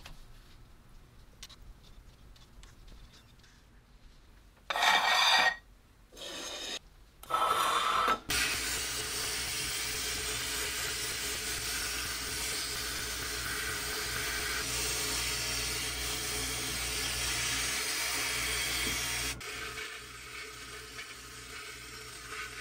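Sandblaster gun in a blast cabinet blowing abrasive against a rusty round metal part: a steady hissing blast that starts about eight seconds in and drops in level near the end. Before it, three short loud bursts of noise and faint handling clicks.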